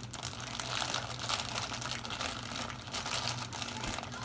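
Clear plastic bag of frozen breaded chicken pieces crinkling irregularly as it is gripped and worked open at the top.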